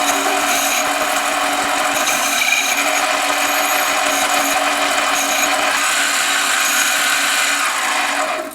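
Harbor Freight 7x10 mini lathe running steadily with several steady whining tones from its motor and gearing, facing off the end of a 6061 aluminium tube. It shuts off abruptly at the end.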